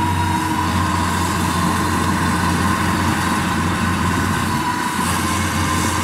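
Kubota DC-93 combine harvester's diesel engine running steadily as the machine crawls on its mud-caked tracks through a muddy rice paddy, with a steady high whine over the engine sound.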